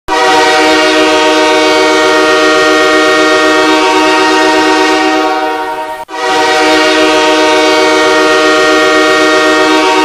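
Los Angeles Kings ice hockey goal horn sounding two long, loud blasts, the first about six seconds long, then a brief break and the second blast.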